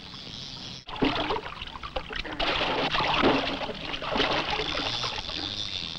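Water splashing and churning as a hooked bass thrashes at the surface, with a short dropout about a second in.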